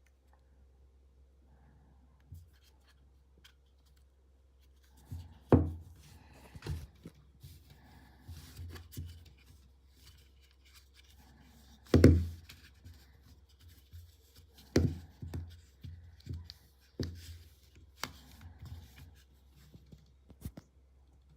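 Hands unboxing a small power bank: packaging rustling and rubbing, with a handful of sharp knocks as the box and device are set down, the loudest about halfway through.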